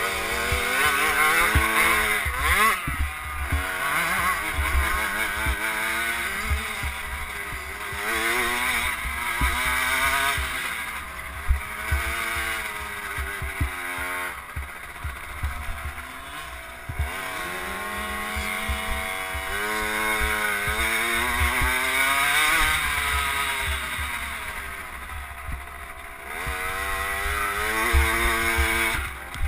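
Off-road motorcycle engine revving up and falling back again and again while riding a dirt motocross track, with wind rumbling on the bike-mounted camera's microphone.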